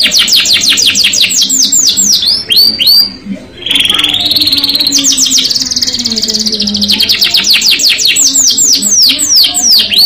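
Domestic canary singing: fast trills of repeated falling notes, a short break about three seconds in, then a held note and more rapid trills.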